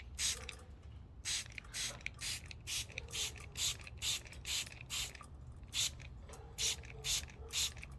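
Hand spray bottle being pumped again and again, misting warm water over budgies: short hissing sprays about two a second, with a brief pause a little past the middle.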